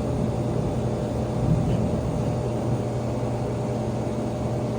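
Steady low background hum with a few held tones and no distinct events.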